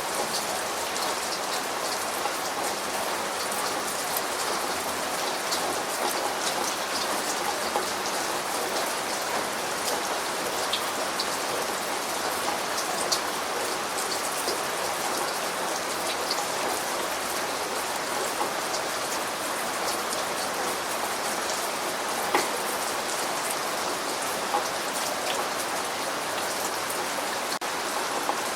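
Steady rain falling, a dense even hiss with individual drops ticking sharply on a surface here and there, a few of them louder.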